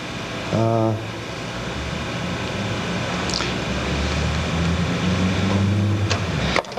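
A steady low hum with low sustained tones that shift in pitch every second or so, and a short pitched tone about half a second in.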